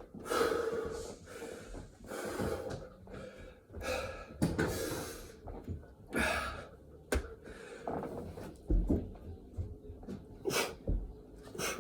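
A man breathing hard and gasping, with loud breaths about every two seconds, exhausted from burpees. In the second half the breaths turn into shorter, sharper gasps, with a few low thuds.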